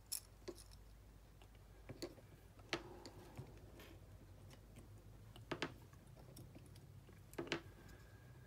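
Faint, scattered light clicks and taps of small plastic and metal parts as an Athearn HO-scale locomotive truck is taken apart by hand and its wheelsets and gear are set down on a cutting mat.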